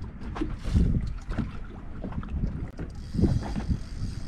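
Wind buffeting the microphone and small waves slapping against the boat's hull, an irregular low rumble that swells about a second in and again near three seconds, with faint scattered clicks.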